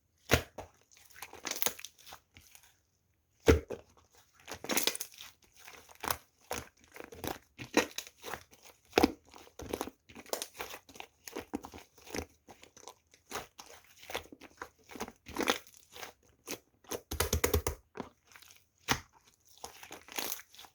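Clay-mixed slime being squished, stretched and poked by hand: irregular sticky clicks and crackles. There is a fast run of clicks about seventeen seconds in.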